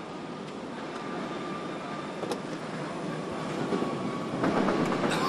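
Steady factory-floor machinery noise with a faint high whine, a single click about two seconds in, and a louder clatter near the end.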